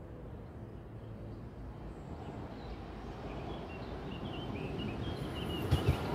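EN63A electric multiple unit approaching on the rails, its rumble growing steadily louder, with a few sharp wheel knocks on the track near the end. Birds chirp over it.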